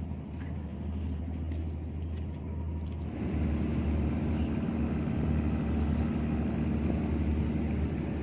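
Steady low hum of a moored ship's machinery, growing louder about three seconds in.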